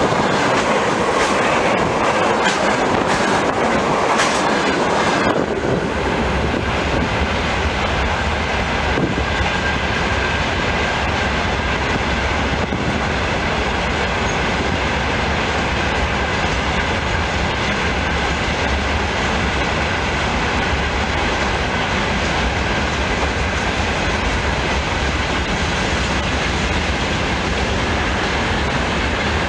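Freight train of open gondola wagons rolling past: a steady rumble with the clicking of wheels over rail joints. About five seconds in the sharp clicking stops and it settles into a smoother, lower rumble, with a thin steady high tone from the wheels underneath.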